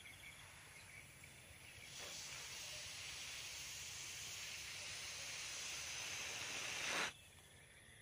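Air hissing out of the neck of an inflated latex balloon held by hand, a steady hiss that grows slightly louder and cuts off abruptly about a second before the end.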